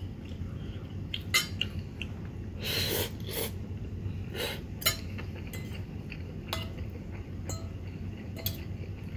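Metal fork and spoon clinking and scraping against a ceramic bowl of noodles while eating: a dozen or so short, scattered clinks.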